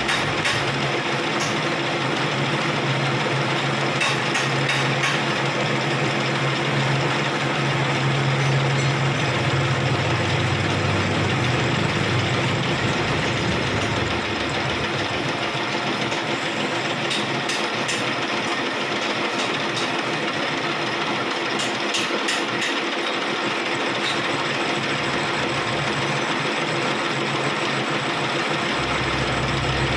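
A machine running steadily with a constant hiss and scattered faint ticks. A low hum fades out about twelve seconds in and comes back near the end.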